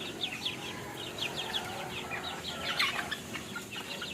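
Chicks peeping: many rapid, short, high-pitched cheeps, each falling in pitch, overlapping one another.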